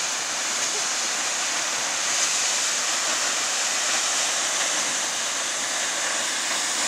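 A tall waterfall plunging off a cliff into a pool: a steady, even rush of falling water with a hissy top.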